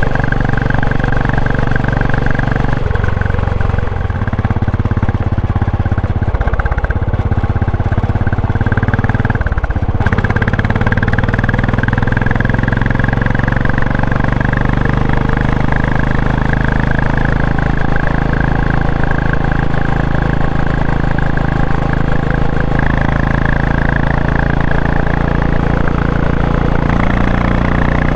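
Royal Enfield Classic 500's single-cylinder four-stroke engine running under way, with mechanical running noise from the chain or gearbox carried through the frame to the microphone. The engine note shifts in steps a few times and rises near the end.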